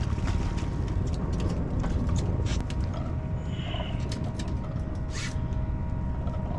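A fishing reel is cranked and a barred sand bass is landed and handled on a boat deck: a run of sharp clicks and rattles over a steady low rumble.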